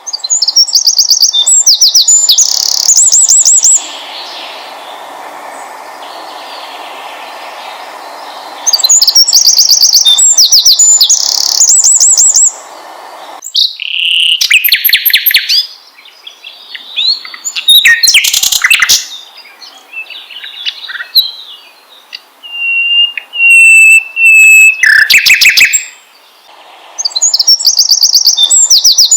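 Songbirds chirping and trilling loudly, a trigger recording used to get caged songbirds singing. Bursts of rapid, high chirps and trills recur three times, with varied whistled calls in between and a softer background hiss.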